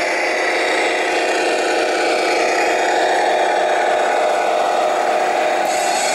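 Steady whirring of small electric motors and gearing, as from radio-controlled model trucks, with a slight change in the higher whine near the end.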